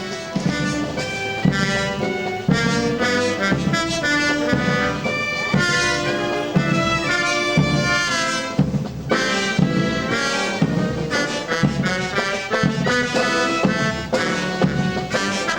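Military brass band playing a march: brass melody and chords over a regular low drum beat.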